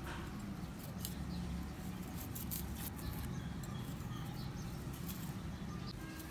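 A worn knife blade scraping the skin off a raw purple yam: a run of small, irregular scratchy scrapes over a steady low background hum.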